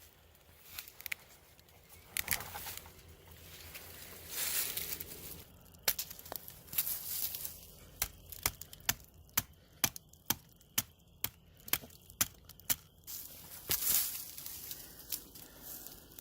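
Footsteps crunching through dry leaf litter and twigs on a woodland floor, uneven at first, then a run of sharp snapping clicks about two or three a second through the middle.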